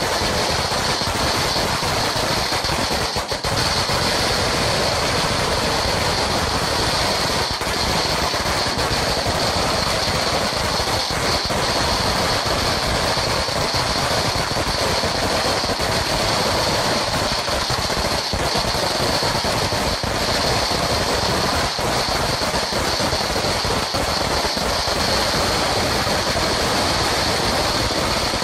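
Sinturon ni Hudas firecracker string, a long belt of small firecrackers, going off in a continuous rapid crackle of pops that run together into a steady roar-like rattle without a break.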